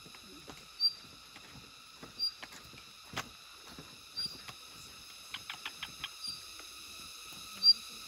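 Forest wildlife: a steady high ringing chorus with short sharp chirps about every one and a half to two seconds, and a quick run of five or six clicks a little past the middle.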